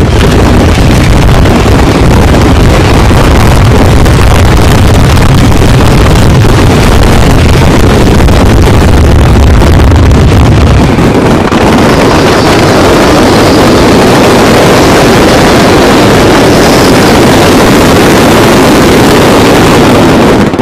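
Ground fireworks burning with a continuous loud rushing noise that overloads the recording. About halfway through, the deep rumble drops away and a higher hiss takes over.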